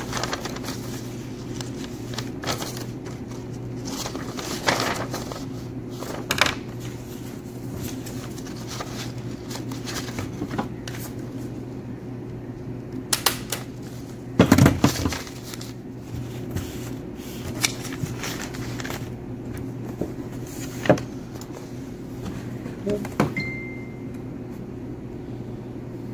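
Sheets of paper being leafed through and handled on a desk, with scattered taps and rustles over a steady low hum. The loudest paper rustle comes about halfway through, and a short beep sounds near the end.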